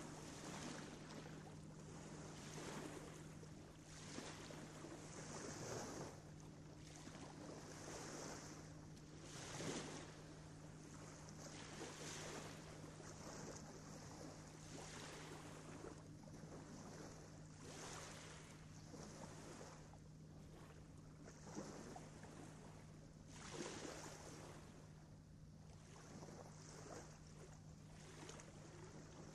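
Faint wash of noise, like surf, swelling and fading every second or two, over a steady low hum.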